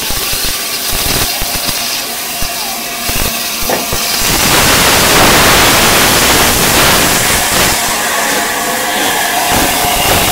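Peppercorn A1 Pacific steam locomotive 60163 Tornado, a three-cylinder engine, getting under way at close range, with a series of sharp exhaust beats. About four seconds in, a loud hiss of steam from the cylinders swamps the beats for three or four seconds before the beats come through again.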